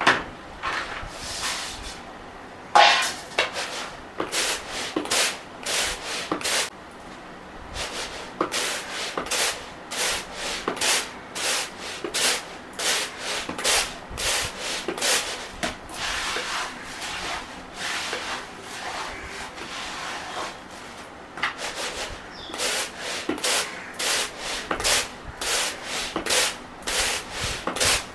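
Uncooked rice grains swishing and rattling in a plastic winnowing tray as the tray is jerked and tossed to clean the rice, in repeated strokes of about two a second with a few slower stretches.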